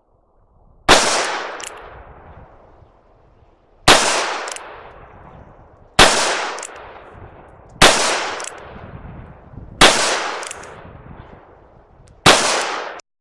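Ruger GP100 .357 Magnum revolver fired six times at a slow, steady pace, about two seconds between shots, each shot trailing off in a long echo.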